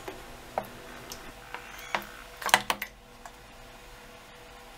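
A handful of sharp clicks and light taps, the loudest a close pair about two and a half seconds in, as sesame oil is poured into an earthenware pot.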